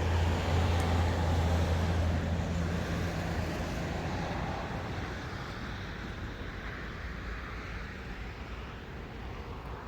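Road traffic: a passing vehicle's low engine drone, loudest at first and fading steadily as it moves away.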